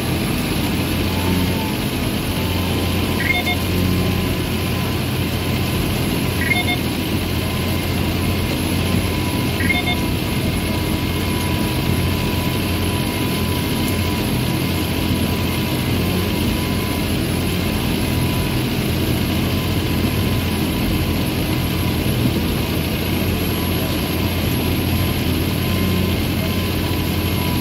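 John Deere 7530 tractor's six-cylinder diesel engine running steadily under load while pulling a plough, heard from inside the cab. A short high chirp repeats about every three seconds during the first ten seconds or so.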